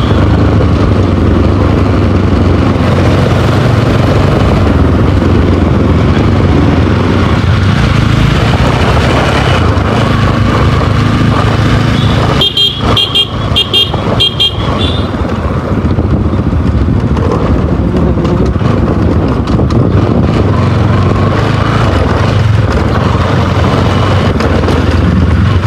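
Motorcycle engine running steadily under way, with heavy rumble on the mic. About halfway through comes a quick string of short, high horn beeps.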